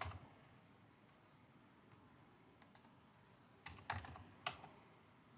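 A few keystrokes on a computer keyboard as a command is typed: a lone click about two and a half seconds in, then a quick run of several near four seconds, with quiet between.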